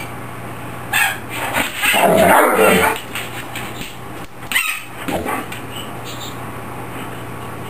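A large dog barking in a few separate bursts, the longest and loudest about two seconds in.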